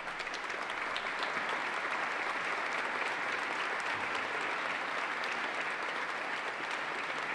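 Legislative chamber audience applauding, a steady dense clapping that fades away near the end.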